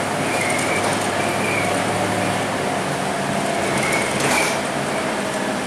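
Cabin ride noise inside a Scania K230UB Euro IV bus on the move: the diesel engine runs under a steady hiss of tyres on a wet road. Brief high squeaks come and go, and there is a short louder jolt-like noise about four seconds in.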